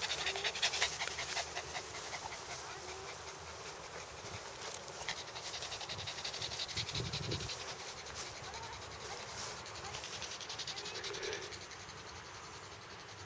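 Small long-haired dog panting quickly and rhythmically after running on grass. The panting fades near the end.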